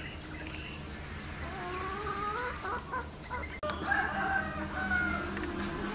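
Rooster crowing: one long call starting about a second and a half in, then a second long call near the middle.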